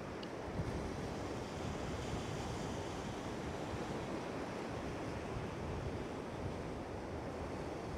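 Lake Ontario waves washing steadily onto the shore, with some wind on the microphone.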